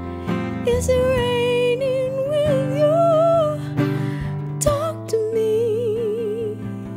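A woman singing a melodic line, holding notes with vibrato, over a strummed Taylor acoustic guitar.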